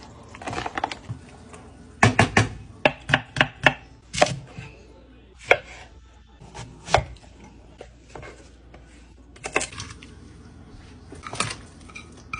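Kitchen knife knocking on a wooden cutting board as vegetables such as tomatoes are cut: short knocks, some in quick runs, spaced irregularly.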